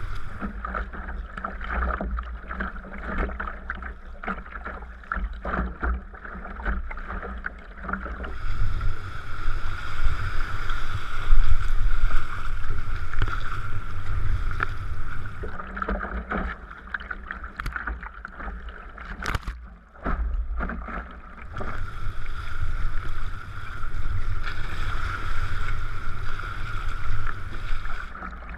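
Sea kayak under way: paddle splashes and water noise, with wind buffeting the microphone in two long stretches.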